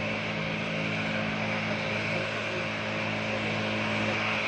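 Airbus A319-112's twin CFM56 jet engines running, a steady roar as the airliner moves down the runway away from the listener.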